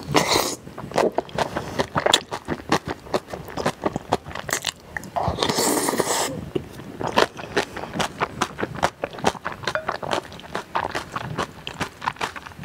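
Close-miked eating sounds of spicy stir-fried noodles: wet chewing and lip smacking throughout, with two slurps, one at the start and one about five and a half seconds in.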